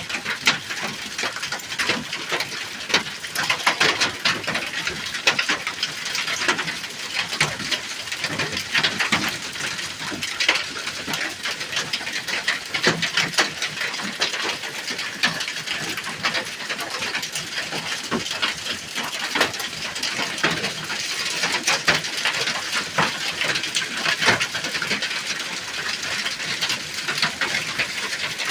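Hailstorm: hailstones pelting a hut's roof in a dense, unbroken clatter of countless small hits, deafening.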